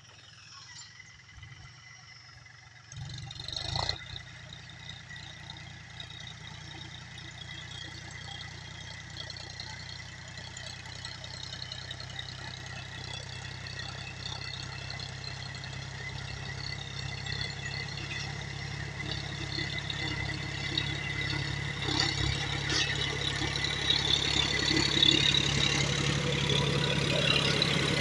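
John Deere tractor's diesel engine running steadily as it pulls a disc bed-former through the soil. It comes in about three seconds in and grows steadily louder as the tractor draws near.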